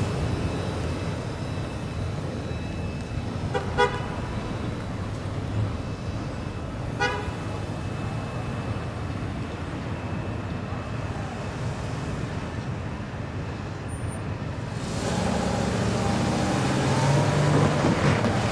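Low rumble of a freight train's autorack cars rolling away along street-running track, with two short horn toots about four and seven seconds in. Near the end, cars pull across the tracks and drive past, louder.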